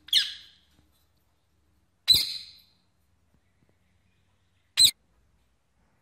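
Baby parrot giving three short, high squeaks about two seconds apart, the last one the shortest.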